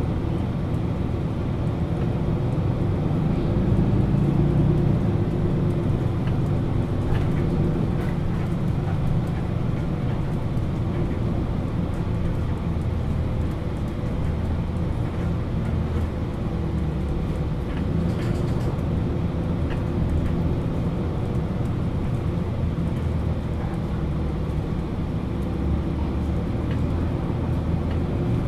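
MAN Lions City A21 NL323 city bus, with its six-cylinder diesel engine idling steadily while the bus stands at a stop. The sound is a low, even hum that changes little.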